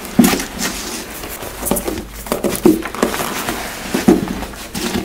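Leather hiking boots being pulled on by hand: rustling of clothing and boot leather with irregular small knocks and scuffs, the sharpest just after the start.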